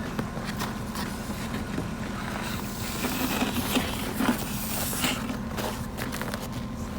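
An engine running steadily underneath, with scattered scrapes and clicks, several of them about halfway through.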